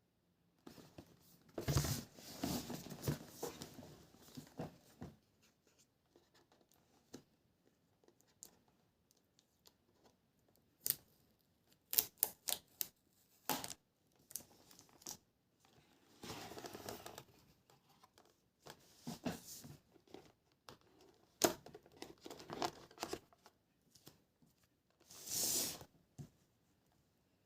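Tablet packaging being torn open and handled: bursts of tearing and crinkling, with sharp clicks and taps in between.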